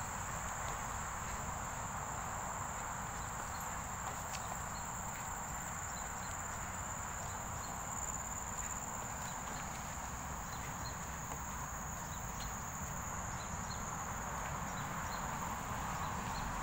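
Insects chirring steadily in a constant high-pitched drone, over a broad outdoor hiss and low rumble, with a few faint small ticks.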